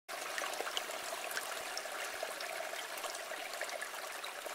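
A stream flowing: a steady rush of running water with small splashes.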